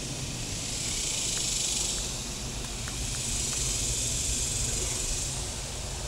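A large honey bee colony heard at close range: a steady hum of massed bees with a hissing wash that swells and eases twice.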